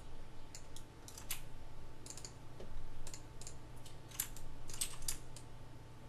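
Computer keyboard keys and mouse buttons clicking irregularly as faces are selected in a 3D modelling program, over a steady low hum.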